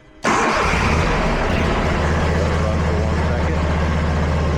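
Scag V-Ride mower's Briggs & Stratton Vanguard 40 hp EFI V-twin engine starting, first run after an oil change: it catches at once a moment in and runs steadily.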